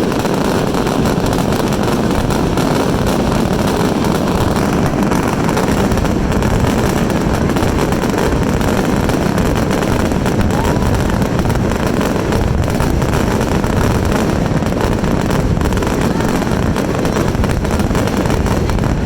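Fireworks finale barrage: shells bursting and crackling so rapidly that they merge into one continuous, steady wall of noise, with no gaps.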